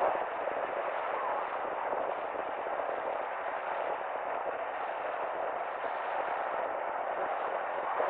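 Steady road and tyre noise from a car driving through city streets: an even hiss with no distinct events.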